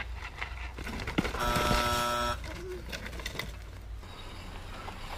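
A harsh buzzer tone lasting about a second and cutting off abruptly, just after a sharp knock as a mountain bike and rider go down on a dirt trail, over a low wind rumble.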